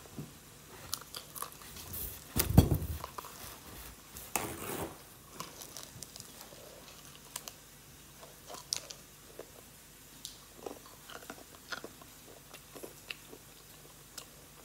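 Close-up chewing and biting into crispy fried chicken: scattered small crunches and wet mouth clicks, with a much louder thump about two and a half seconds in and another burst about two seconds later.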